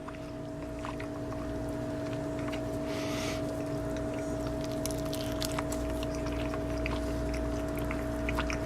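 A person chewing a mouthful of microwaved chicken patty with a flaky, chewy crust: soft scattered clicks of chewing and a short crunchy rustle about three seconds in. A steady low hum runs underneath.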